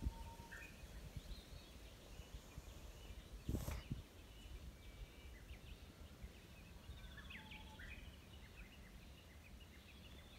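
Faint outdoor ambience with small birds chirping and whistling on and off. A brief rustle about three and a half seconds in is the loudest sound.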